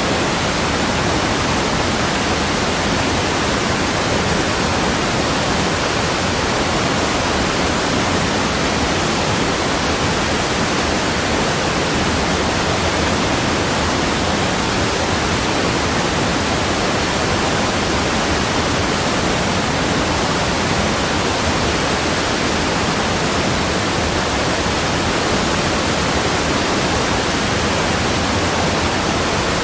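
Waterfall: water falling in a steady, unbroken rush with no changes.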